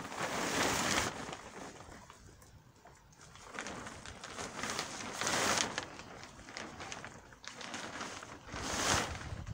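Heavy 180-micron polytunnel plastic sheeting rustling and dragging over the metal hoops as it is pulled by hand, in three bursts: near the start, about midway and near the end.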